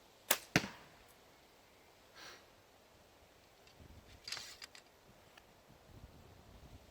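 Topoint T1 compound bow shot: a sharp snap as the string is released, then a second sharp crack about a quarter second later as the arrow strikes the target. A few softer clicks and rustling of handling follow a few seconds later.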